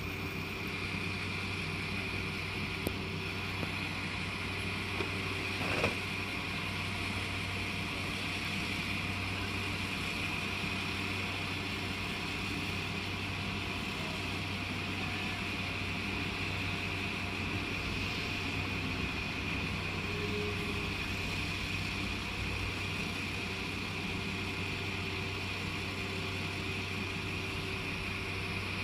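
Class 172 Turbostar diesel multiple unit idling while stationary: a steady low engine hum with a constant high whine over it. There are a couple of short clicks in the first six seconds.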